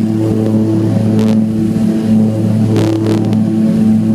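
Light single-engine propeller plane's engine and propeller running steadily at full takeoff power, a loud drone heard inside the cabin. A couple of brief rattles come through about a second in and again about three seconds in.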